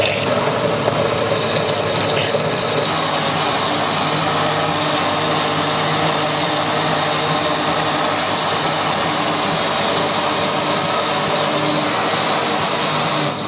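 Electric blender motor running steadily at speed, chopping whole mice (bone, teeth and fur) with fruit and leaves into a smoothie, with chunks still going round in the jar.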